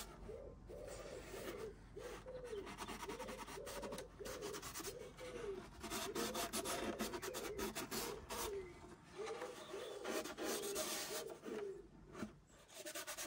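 Hand sanding on the bare wooden body of a viola: abrasive paper rubbed back and forth in short strokes, about two a second, each stroke rising and falling in pitch. The strokes pause briefly twice near the end.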